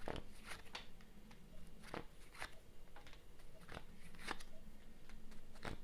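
Playing cards being handled and drawn from the deck: a series of light, irregular snaps and clicks, about eight in all.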